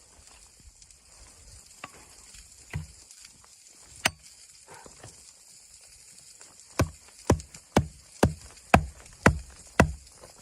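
Wood being chopped: a single sharp knock about four seconds in, then a steady run of strikes about two a second near the end, over a steady high hiss.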